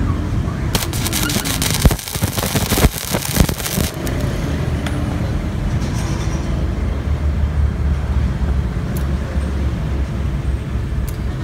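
Gasless flux-core MIG welder arc crackling and spitting in one burst of about three seconds, starting about a second in, as a short weld is laid on rusty steel bar. A steady low rumble runs underneath.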